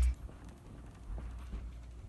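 Faint, scattered knocks and thuds of a person moving about a room and rummaging while searching for scissors, over a low hum.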